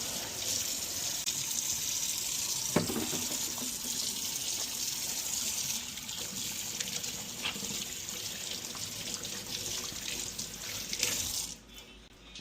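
Kitchen tap running steadily into a sink, shut off near the end. A single knock about three seconds in.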